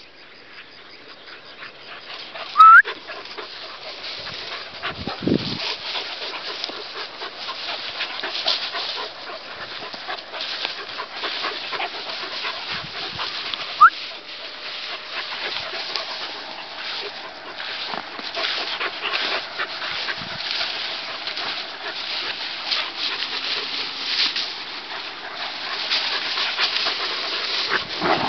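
Two young Airedale terriers play-fighting in long grass: continuous scuffling and dog noises, with a short, sharp, rising yelp about three seconds in and another about halfway through.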